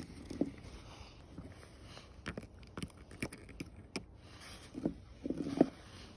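Light, irregular taps and clicks of a plastic toy horse figurine being walked over wooden boards and ice, with hand-handling noise and a few louder knocks near the end.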